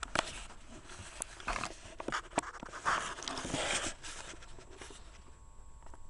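Handling noise as the recording device is moved about: scattered light clicks and short bursts of rustling, busiest in the middle, dying down near the end.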